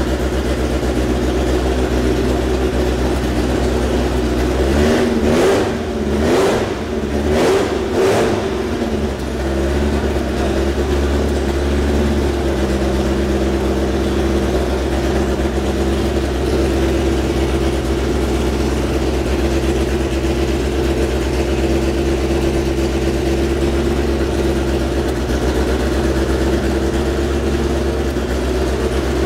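Nissan 2.4-litre naturally aspirated four-cylinder racing engine idling steadily on its first start, blipped up a few times in quick succession about five to eight seconds in, then settling back to an even idle.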